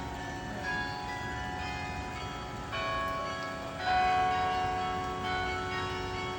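Bell tower bells ringing: a new bell strikes about once a second, each note lingering under the next, the loudest strike about four seconds in.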